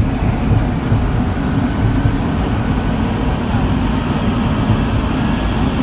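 Concarril NS-88 metro train running between stations, heard from the gangway between cars: a steady low rumble with a faint high hum above it.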